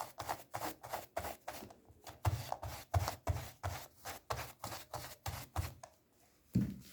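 Large brush scrubbing a remote control's rubber button keypad in quick strokes, about three a second, stopping shortly before the end.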